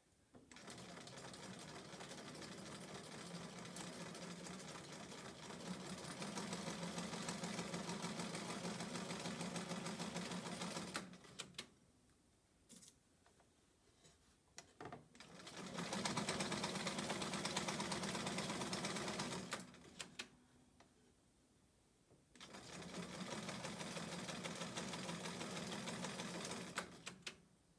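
Bernina sewing machine stitching quilt patchwork pieces in three runs: a long run of about ten seconds that gets louder partway through, then two shorter runs of four to five seconds. The pauses between them hold a few small clicks as the pieces are fed through one after another in chain piecing.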